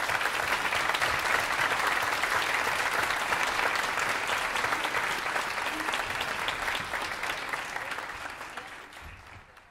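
A large audience applauding steadily in an auditorium, dying away near the end.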